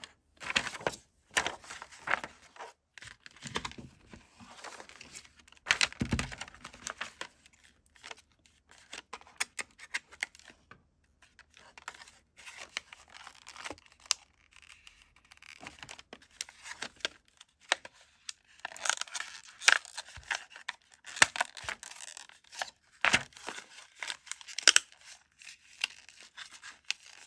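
Paper and packaging handling: an instruction leaflet and a pack of AA batteries rustling and crinkling in irregular bursts, with scattered clicks and scrapes, busiest in the last third.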